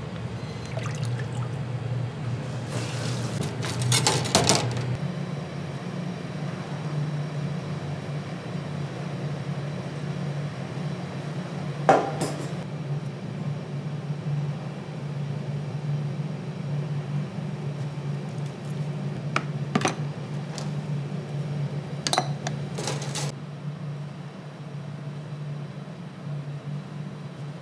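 Kitchen cooking sounds: a steady low hum under a handful of clinks and clatters of pots and dishes, with liquid sloshing and being poured.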